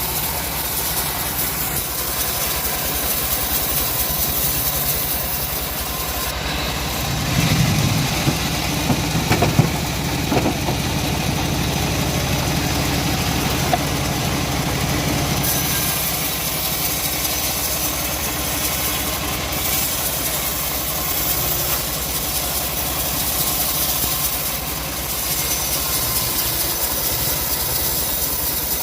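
Chainsaw engine running steadily as it slices through wood, with a few sharp knocks about eight to ten seconds in.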